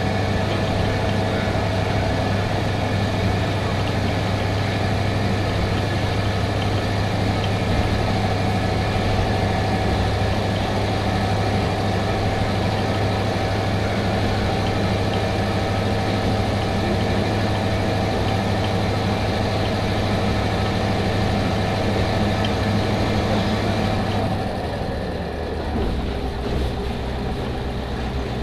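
Kanto Railway KiHa 005 diesel railcar running, its DMH17C eight-cylinder diesel engine humming steadily over the rumble of the car on the rails. About twenty-four seconds in, the engine's low hum changes and the sound drops a little, then runs on steadily at the new note.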